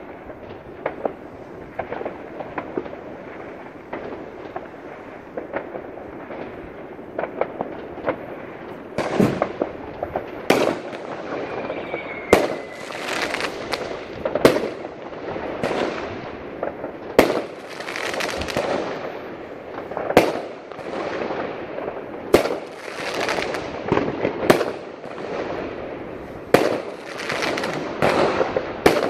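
Consumer fireworks and firecrackers going off: a steady crackle of many small pops and distant bangs, then from about nine seconds in loud, sharp bangs about every two seconds, each trailing off in echo. A brief whistle near the middle.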